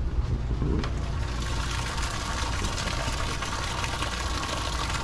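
Steady splash of cooling water pouring from the boat's hull discharge outlet into the water below, the outflow of the seawater system now fed by the AC Lifted pump.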